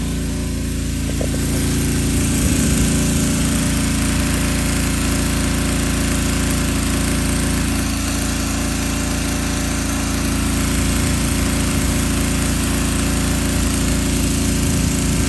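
Pressure washer running steadily as it sprays a vinyl fence: a constant small-engine drone under the hiss of the water jet.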